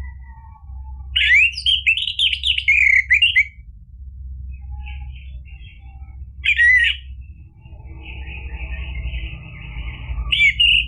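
Orange-headed thrush singing: a loud burst of quick, varied whistled phrases lasting about two seconds, beginning about a second in, then a short phrase in the middle and another near the end. A steady low hum runs underneath.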